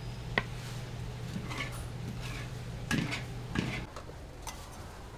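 Clinks and knocks of cooking utensils and dishes at a market food stall: one sharp click about half a second in and a few knocks near the end, over a steady low hum that cuts off about four seconds in.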